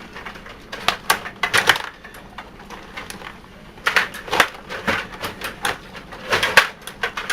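Table hockey game in play: sharp plastic clacks and knocks of the rod-worked players and the puck, in quick clusters about a second in, around four to five seconds in, and again just past six seconds.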